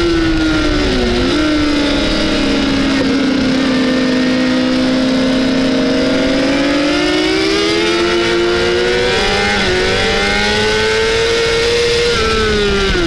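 Honda CBR600RR's inline-four engine at racing speed, heard onboard over wind rush. The revs dip briefly about a second in, hold low and steady for a few seconds, climb from about six seconds with a gear change near nine seconds, and dip sharply again near the end.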